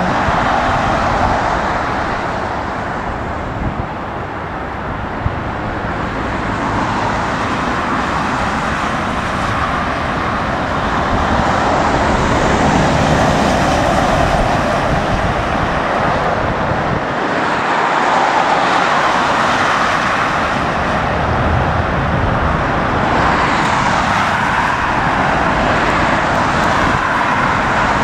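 Steady rush of road traffic passing close by, with a lorry going right past about halfway through. Jet engine noise from a landing airliner is mixed in during the first few seconds, and strong wind buffets the microphone.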